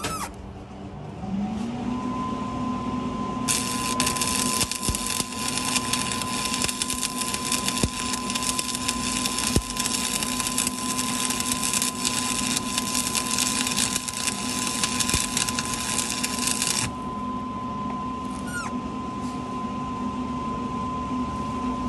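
Stick welder switched on: its hum comes up about a second in and holds steady. The arc then strikes and crackles for about thirteen seconds before cutting off, the machine still humming.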